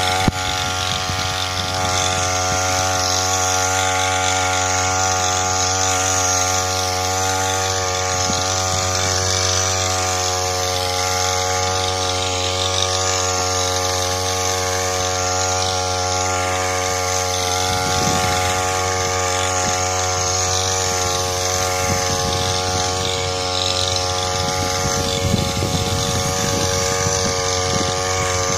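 Small engine of a backpack power sprayer running steadily at constant speed, driving the sprayer while it delivers a continuous mist from the lance.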